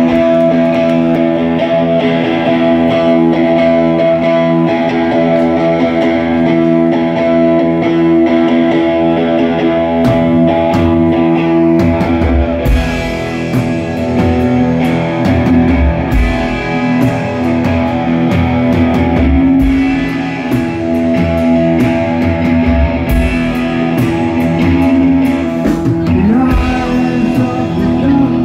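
Live rock band playing loudly with electric guitars and bass, opening on ringing, sustained guitar chords; the drum kit comes in about ten seconds in, with cymbals from about twelve seconds on.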